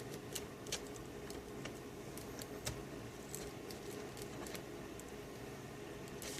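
Light, scattered clicks and taps of a plastic laptop screen bezel being handled and fitted back onto the display lid, over a faint steady hum.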